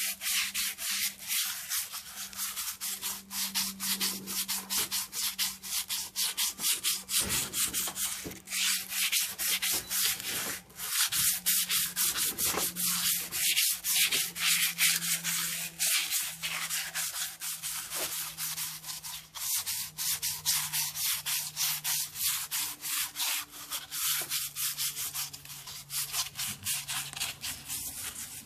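Fine sandpaper rubbed by hand in rapid back-and-forth strokes against the cast-iron cylinder walls of a small-block Chevy 350 engine block, wet with WD-40, to take off light surface rust.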